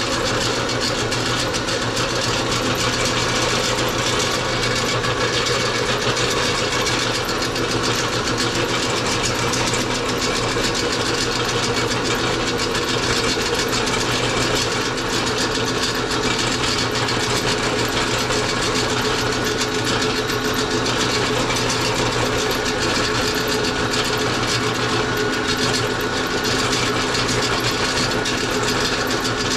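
Motorized meat grinder running steadily while it grinds raw pork, an even mechanical hum with a light rattle.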